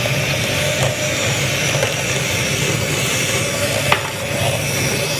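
Electric hand mixer running steadily, beating butter and icing sugar into a cookie dough base, with one short knock of the beaters against the bowl about four seconds in.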